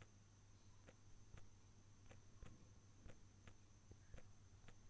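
Near silence with faint, irregular taps of fingers typing on a smartphone's on-screen keyboard, over a low steady hum.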